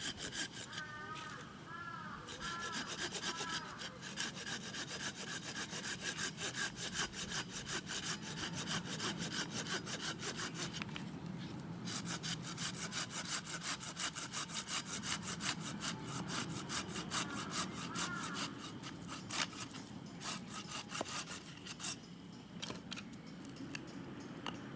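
Hand saw cutting through wood in steady back-and-forth strokes, with a brief pause about halfway through. The strokes thin out near the end.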